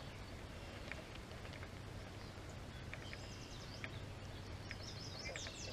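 A songbird singing faintly over quiet outdoor background noise: short runs of quick, high sweeping notes, starting about three seconds in and coming again near the end.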